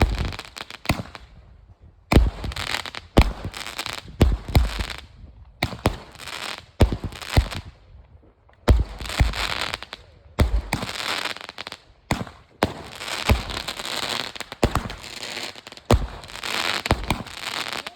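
Consumer fireworks going off in quick succession: sharp booms, each followed by a dense noisy spray of sound. There are a few short lulls, about a second long, between volleys.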